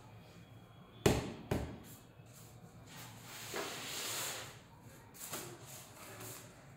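Two sharp knocks about half a second apart as an engineered wood floor plank is knocked into place, followed by a longer rustling scrape and one softer knock.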